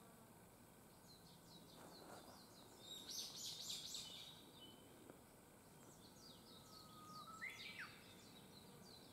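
Quiet forest ambience with faint birdsong: quick high chirps throughout, a dense flurry of chirping about three seconds in, and a rising whistled note near the end.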